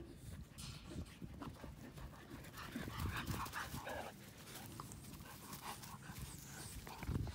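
Two North American Mastiff puppies play-wrestling on grass: scuffling with short rustles and knocks, and panting, busiest a few seconds in.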